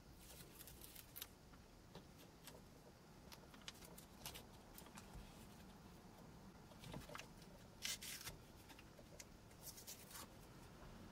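Faint handling sounds: soft rustles and small clicks as an LED board is worked into a car's plastic room-lamp housing, with a few sharper clicks about eight seconds in.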